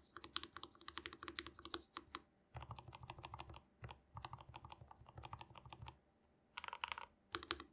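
Typing on a Dareu A87 mechanical keyboard with linear Gateron Milky Yellow Pro switches and PBT keycaps. Quick typing opens the sound, followed by two long runs of very rapid keystrokes, then two short flurries near the end.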